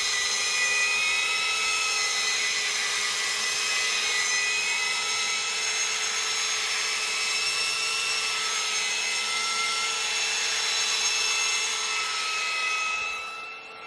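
Porter-Cable belt sander with a coarse 40-grit belt running steadily against the end grain of a log round, a steady motor whine over the hiss of the belt on wood. The sound drops sharply near the end.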